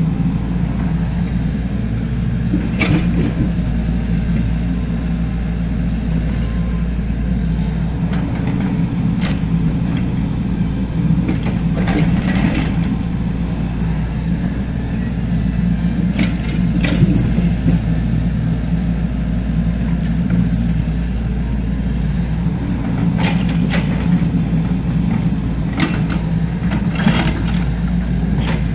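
Excavator diesel engine running steadily while digging. A scattering of short knocks and scrapes, likely the bucket working the ground, comes several times, clustered around a quarter, a half and near the end.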